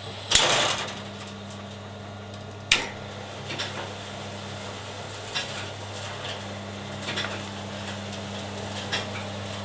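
Homemade wood-chip feeder cycling on. A clatter as the chute flap opens is followed by the steady hum of the screw-auger drive, an auger taken from an E512 combine, with light scattered rattles of wood chips sliding down into the burner hopper. There is a single sharp click a few seconds in.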